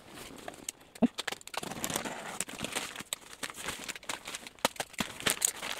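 Clear plastic wrapping crinkling and crackling as it is pulled off a cardboard shipping box, a dense run of irregular crackles and small clicks.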